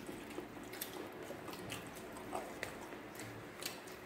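Eating biryani by hand: chewing with faint wet mouth smacks, and fingers working rice in an aluminium foil tray. The sound is a handful of short, faint clicks spread over the few seconds.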